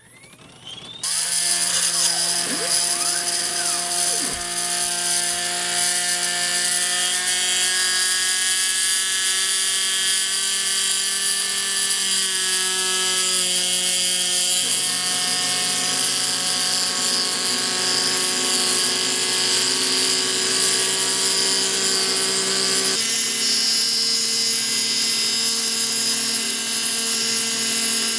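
Home-made CNC router starts up about a second in and runs with a steady high whine. The whine comes from its 540-size brushed RC motor spindle turning a 3.2 mm router cutter through wood, mixed with the whine of its stepper motors driving the axes. The tone shifts twice as the machine changes its moves.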